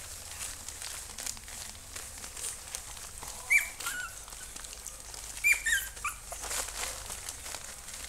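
Puppies play-wrestling: short high squeals in two brief clusters, one a few seconds in and one about two seconds later, over a soft scuffling of paws on a blanket.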